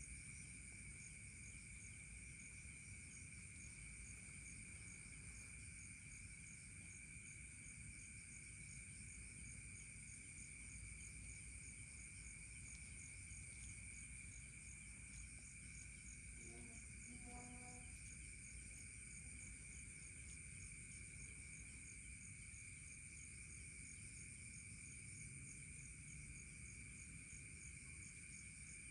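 Faint, steady chorus of night insects such as crickets: continuous high-pitched shrilling with a fast, pulsing trill above it. A brief low call sounds once, a little past halfway through.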